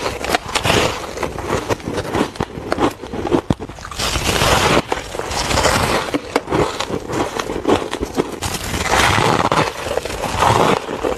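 A person biting and chewing chunks of packed powdery ice: a dense run of crisp crunches and crackles in bursts, with short pauses between bites.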